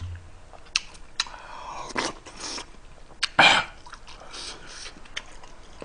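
Close-miked eating of spicy stew: a spoon clicks several times against the bowl, with soft slurping and chewing, and a loud breathy exhale through an open mouth about three and a half seconds in.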